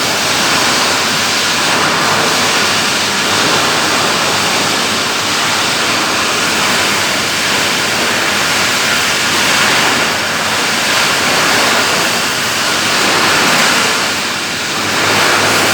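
A hay baler running, a loud, steady mechanical din with no clear stroke rhythm.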